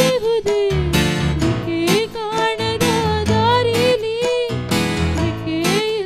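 Young woman singing a Kannada film song into a microphone, holding long wavering notes over instrumental accompaniment with plucked strings.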